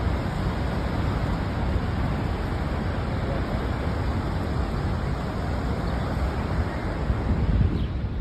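Niagara Falls' water falling and rushing as a steady, dense noise, heaviest in the low end.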